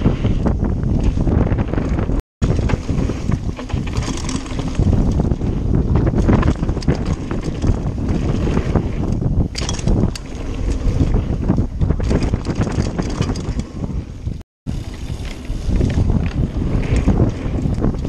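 Wind buffeting the microphone as a mountain bike descends a dirt trail at speed, with steady tyre rumble and many small clicks and knocks from the bike rattling over bumps. The sound cuts out completely twice, briefly.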